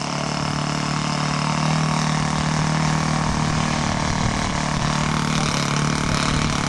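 Cessna 152's four-cylinder Lycoming engine and propeller running steadily at low power, a little louder from about a second and a half in.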